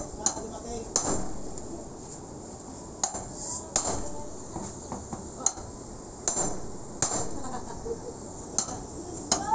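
Hammer blows on a steel pry bar, working nails loose from old rusty corrugated iron roof sheets: sharp metallic knocks at irregular intervals, about ten in all.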